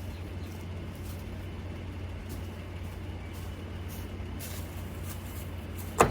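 Pickup truck engine running steadily in a low, even hum, with one sharp bang right at the end.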